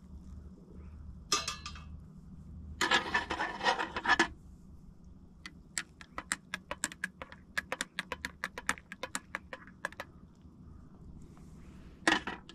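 A metal spoon stirring a drink in a glass mug, clinking quickly against the glass several times a second for about four seconds. Before that come two short clattering noises, and near the end the spoon is put down on the table with a short clatter.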